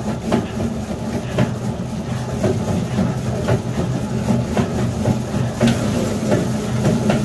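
Spiral dough mixer running at high speed, its hook kneading stiff sweet bread dough in a turning steel bowl: a steady motor hum with a knock about once a second.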